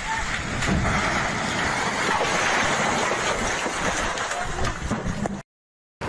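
Landslide on a forested slope: a loud, steady rush of noise as earth and trees slide down. It cuts off suddenly a little past five seconds in.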